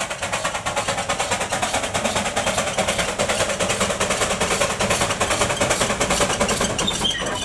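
Small steam locomotive working, its exhaust beats coming in a rapid, even rhythm.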